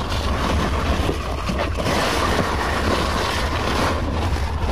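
Wind buffeting the microphone with a steady low rumble, with rustling and brushing of large pumpkin leaves as the vines are handled.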